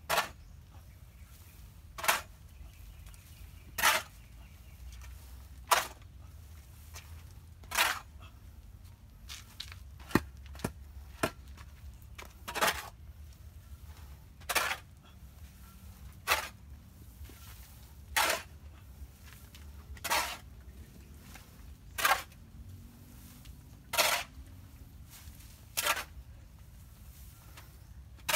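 A shovel scooping and tossing chicken-manure compost as the pile is turned and mixed: a short scrape about every two seconds, with two quicker extra strikes near the middle.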